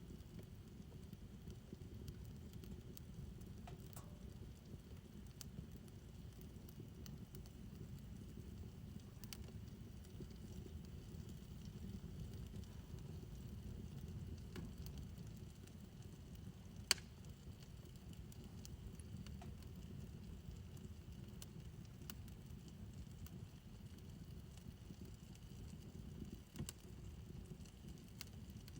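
Fire burning in a backyard fire pit: a low, steady rumble with sparse faint crackles, and one sharp pop a little past halfway.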